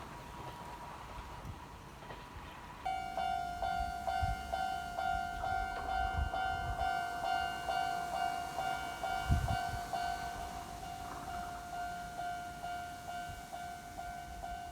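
A Japanese railway level-crossing alarm starts about three seconds in and keeps ringing: an electronic bell striking over and over at a quick, even pace. A few low thumps sound under it.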